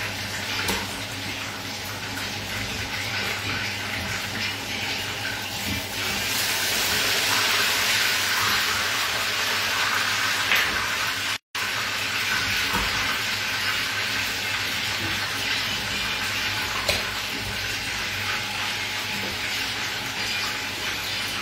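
Breaded chicken fillets frying in hot oil in a pan: a steady sizzle that grows louder for a few seconds around the middle, with a few light knife taps on a wooden cutting board. The sound cuts out completely for a split second just before halfway.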